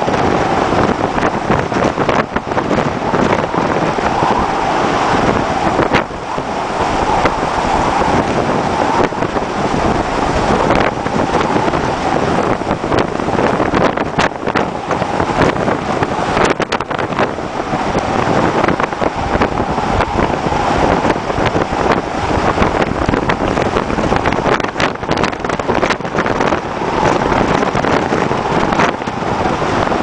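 Strong storm wind rushing and buffeting the microphone, with heavy seas and spray washing over the deck of a very large crude carrier. A steady, loud rush, broken by short, harder gusts now and then.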